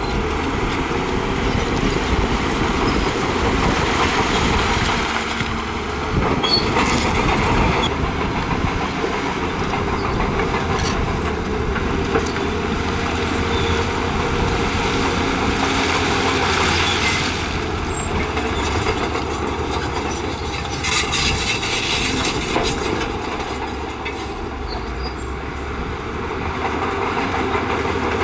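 Crawler bulldozer working rock: its diesel engine running steadily under load while the steel tracks clank and rock grinds and scrapes, with a few louder clattering bursts.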